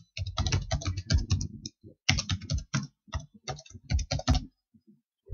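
Typing on a computer keyboard: quick runs of keystrokes with a short pause about two seconds in, stopping about four and a half seconds in.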